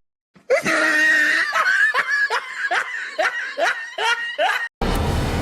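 A cartoon character's voice laughing: a string of pitched "ha" strokes, two to three a second, for about four seconds, cut off abruptly near the end.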